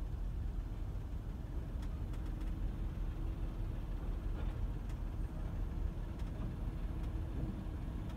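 Steady low engine rumble of an idling vehicle heard from inside a car, with a few faint clicks.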